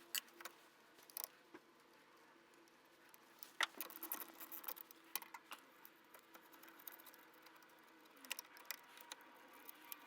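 Faint, irregular light clicks and clinks of hand tools being handled. They come in two busier patches, about three and a half to five and a half seconds in and again around eight to nine seconds, with one sharper tap near the start of the first.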